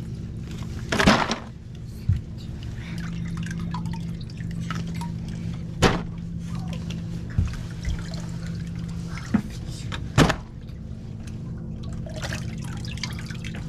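Whole walleye being laid into an iced cooler, giving a few wet knocks and slaps against ice and plastic, the loudest about a second in. A steady low engine hum runs underneath.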